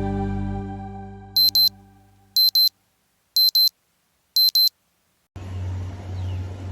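Background music fading out, then a digital alarm beeping: four high double beeps about a second apart, the wake-up signal.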